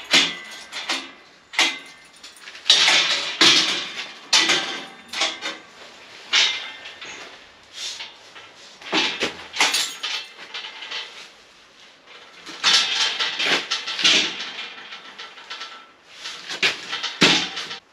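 Galvanized steel barred door and its frame being handled and fitted in a doorway: repeated, irregular metal clanks, knocks and rattles.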